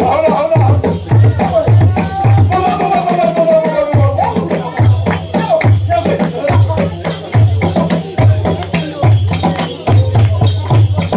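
Live Rwandan traditional ingoma drumming: tall wooden drums beaten with sticks in a steady beat of about two deep strokes a second, with sharp stick clicks, and a voice singing a melody over it in the first few seconds.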